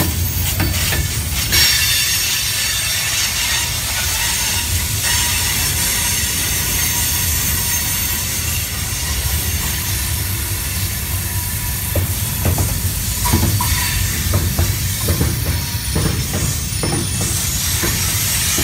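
Train rolling past: rail cars give a steady rumble and hiss, with a few sharp clicks of wheels on the rails in the latter half.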